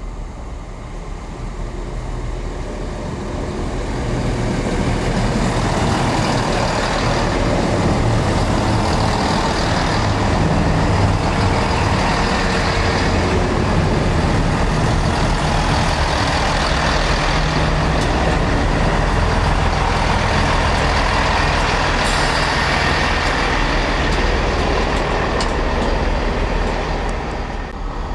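Train passing through a station: engine hum and wheel noise build over the first few seconds, stay loud and steady for about twenty seconds, then ease off near the end.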